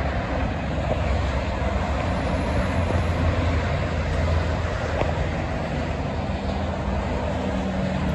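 Steady highway traffic noise from cars and heavy trucks, with a low engine rumble underneath.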